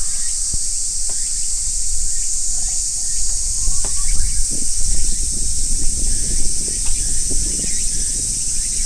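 Steady high-pitched drone of insects, with a low rumble underneath and a few faint clicks.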